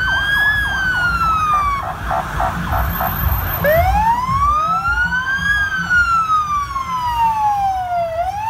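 Emergency-vehicle sirens on a passing convoy of fire engines: a rapid yelp of about four sweeps a second during the first two seconds over a slow wail that rises and falls. From about four seconds in, two wailing sirens overlap out of step, above a low rumble of engines.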